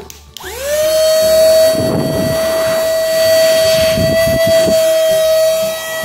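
Motor of a small handheld cordless vacuum cleaner and dust blower, running in blow mode, switched on about a third of a second in. Its whine rises quickly and then holds a steady high pitch at full power.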